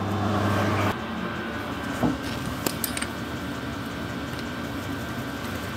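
A steady low motor hum cuts off about a second in, leaving a quieter workshop hum. A few light metallic clicks follow as a small threaded part is fitted by hand into the freshly tapped bore of an alloy workpiece held in a lathe chuck.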